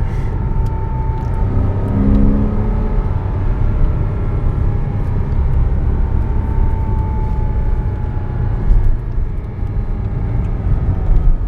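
Porsche 987.1 Cayman S's 3.4-litre flat-six running steadily while the car is under way, with a strong low rumble from the road.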